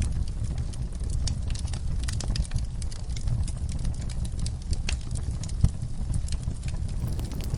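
Wood fire crackling in a fireplace: irregular snaps and pops over a steady low rumble, with one louder pop about five and a half seconds in.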